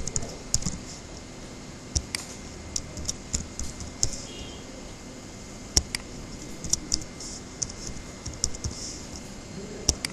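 Computer keyboard typing: a run of irregular key clicks, with a few louder strokes.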